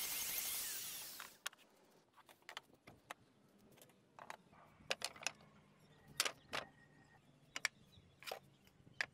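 Compact wood router flattening pallet wood on a sled, running with a steady whine that winds down and stops about a second in. Then scattered light wooden knocks and clicks as boards are handled.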